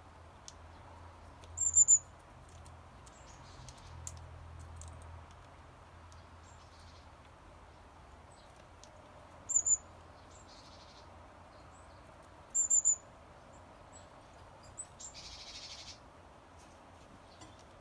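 Varied tit giving short, high, thin chirps in three brief clusters: about two seconds in, near ten seconds, and near thirteen seconds.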